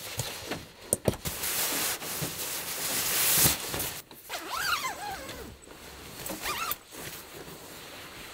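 Down sleeping bag being handled and spread out: its zipper is drawn in one long zip that grows louder and stops abruptly about three and a half seconds in, among the rustle of the nylon shell. Two short, high squeaky sounds follow a few seconds later.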